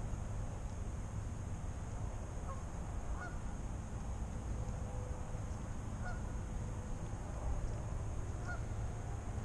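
Geese honking in the distance: a few short, scattered calls over a steady low rumble.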